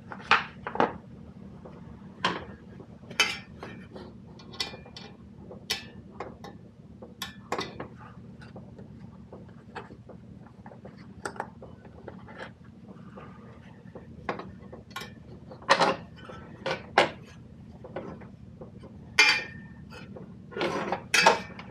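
Irregular metallic clicks and clanks as tools and parts are handled at a walk-in cooler's evaporator fan motor and its wiring, over a steady low hum.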